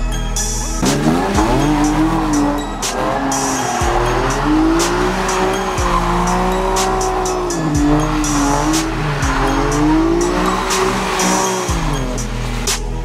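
Nissan 370Z's V6 revving up and down repeatedly as its rear tyres squeal in a smoky drift, starting about a second in and dying away near the end. Music with a steady beat plays throughout.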